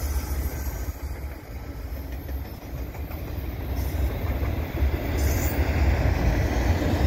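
Freight train of auto rack cars rolling past, steel wheels rumbling on the rails. A steady rumble that dips a little and then grows louder in the second half.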